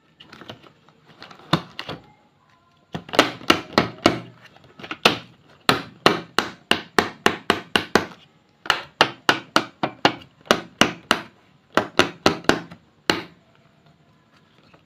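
A run of sharp knocks or taps on a hard surface, about three a second, coming in bursts with short pauses between them.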